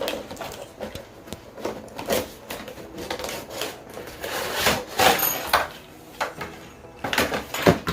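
Toy box packaging being handled and pulled open: an irregular run of scrapes, knocks and rustles, loudest about five seconds in and near the end.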